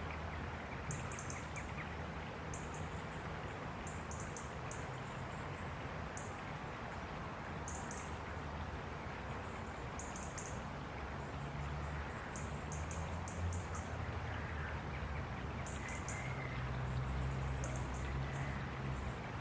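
Grey wagtail calling: short, sharp, very high notes in quick groups of two to four, repeated every second or two, over the steady rush of a river.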